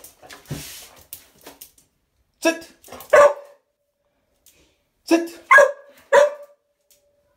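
A puppy barking: two short barks about two and a half seconds in, then three more a second or two later, after a few faint knocks and rustles.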